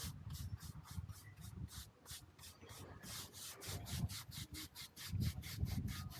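Joint roller (pointer) scraping along fresh mortar joints in brickwork: a rapid rhythmic scratching of about five strokes a second, with a few dull low knocks.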